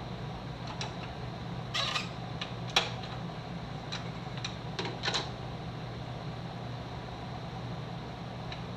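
Scroll saw running with a steady low hum while a wooden workpiece is lifted and handled on its table, giving a few short knocks and scrapes about two, three and five seconds in.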